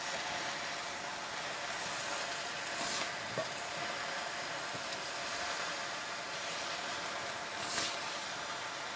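Green leafy vegetables sizzling in a pan over a wood fire, stirred with a wooden spatula; a steady hiss with a couple of brief swishes of the spatula, one about three seconds in and one near the end.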